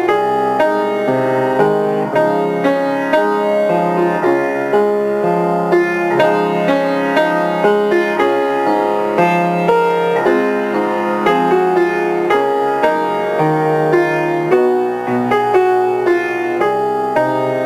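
Solo grand piano playing a piece in a steady pulse, with notes and chords struck about every two-thirds of a second.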